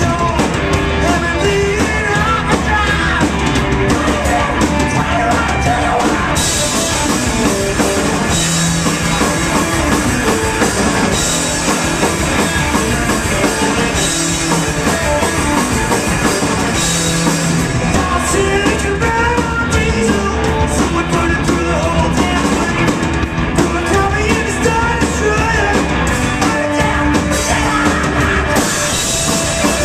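Psychedelic rock band playing live, loud and continuous: electric guitars, bass and drum kit, with a man singing into a microphone.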